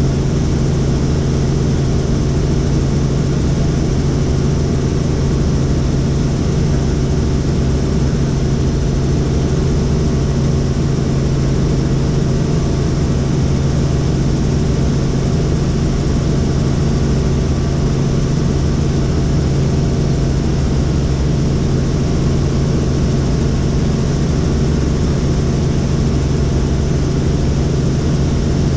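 Helicopter in steady flight heard from inside the cabin: engine and rotor running with a constant low drone and an even hiss above it, unchanging throughout.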